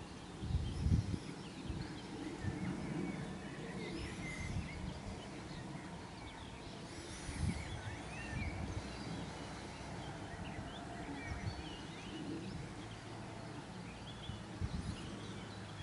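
Outdoor ambience of many faint small-bird calls and chirps scattered throughout, with intermittent low rumbles underneath.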